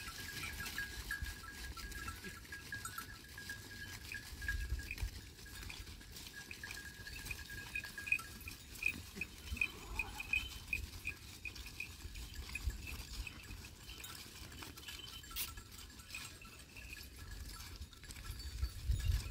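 A mixed flock of sheep and goats on the move, with bells on the animals clinking and ringing: a steady ringing through the first half, then a quick run of repeated chimes in the middle.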